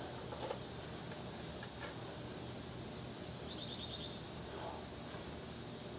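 Insects trilling on one steady high note over a low outdoor hiss, with a short rapid run of ticks about three and a half seconds in.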